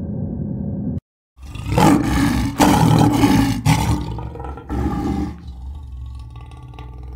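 A steady low hum cuts off about a second in. A lioness then roars loudly in three long, rough bursts, and the last trails off into quieter, lower rumbling.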